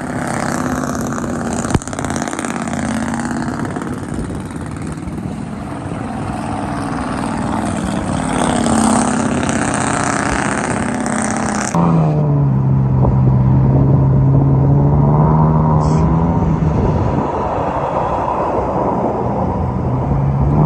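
Pickup truck engines revving hard as the trucks spin their tyres through a flooded mud field, with tyres churning through mud and water. About twelve seconds in the sound cuts to another truck with a lower, louder engine note that rises and falls.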